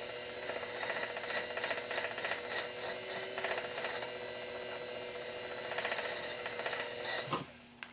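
Small lathe motor running with a steady hum while a polishing stone is rubbed back and forth against the steel pivot of a spinning brass clock wheel, about three strokes a second, smoothing the newly filed pivot. The motor and the rubbing stop near the end.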